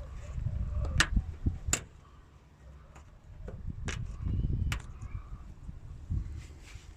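Sharp plastic-and-metal clicks and knocks from hands working on a car door's trim and window weather strip, four distinct snaps over low rumbling handling noise.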